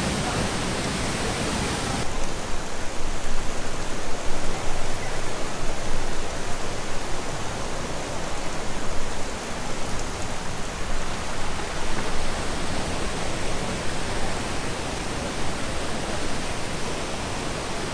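Steady, loud rush of a large waterfall's falling water, an even noise with no distinct events; its tone changes slightly about two seconds in.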